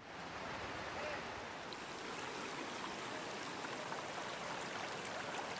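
Muddy floodwater running steadily: a continuous, even wash of flowing-water noise.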